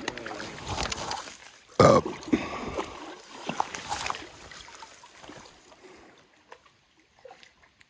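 Water splashing in a shallow stream, loudest in a sudden burst about two seconds in, then dying away to faint trickling and clicks.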